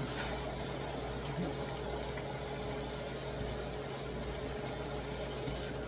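Steady low hum with an even hiss over it, from ground pork cooking in a skillet over a lit gas burner; no single sound stands out.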